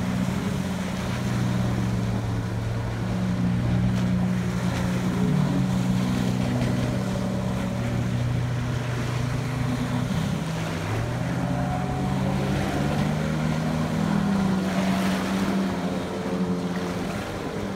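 Apache 9.9 outboard motor on an inflatable boat running at speed, a steady drone whose pitch dips about ten seconds in and then climbs again. Wind and water noise run underneath.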